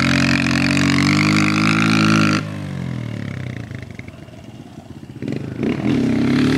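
Kawasaki KLX dirt bike's single-cylinder four-stroke engine revving hard in first gear, held high for about two and a half seconds and then cut off suddenly as the throttle is shut. It drops away for a few seconds, then revs up again near the end.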